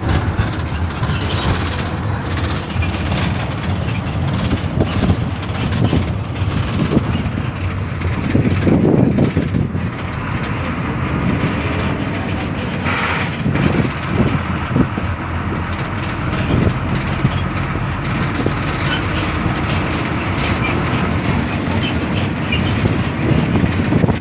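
Steady road and engine noise heard from inside a moving car: a dense low rumble that swells briefly about a third of the way in and again a little past halfway.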